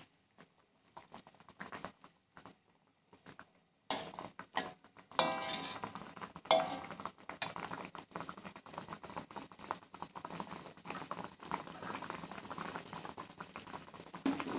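Fish broth bubbling in a metal wok, mostly quiet at first and then crackling steadily from about four seconds in. A metal spatula clinks against the wok twice, at about five and six and a half seconds in.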